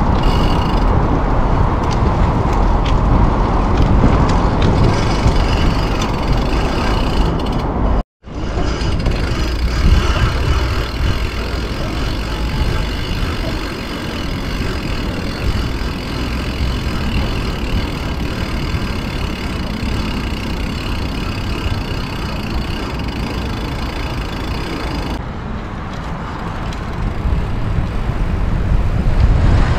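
Steady wind rush and tyre noise from a bicycle being ridden at speed, picked up by an action camera's microphone. The sound cuts out for a moment about eight seconds in, then the same rushing noise carries on.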